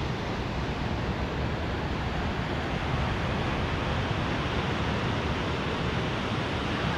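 Steady rush of ocean surf mixed with wind, with low, uneven buffeting from wind on the microphone.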